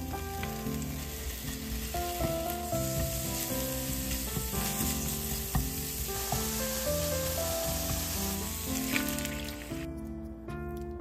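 Ground pork with minced garlic and ginger sizzling in a hot oiled nonstick frying pan while it is stirred and broken up with a spoon, under background music. The sizzling cuts off near the end as water goes into the pan.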